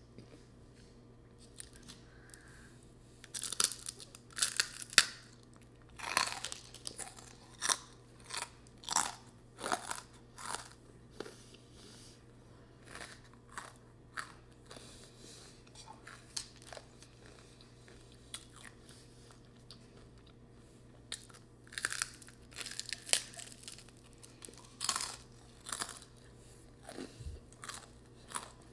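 A boy chewing spicy ramen noodles, with crackly, clicking mouth sounds that come in spells separated by quieter pauses.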